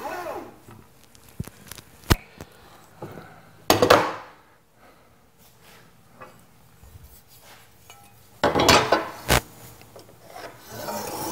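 Hand tools being handled on lumber: a metal speed square and a spirit level knocked, set down and slid across wooden boards. There are a few sharp knocks and two louder scraping rushes, about four seconds in and again near nine seconds.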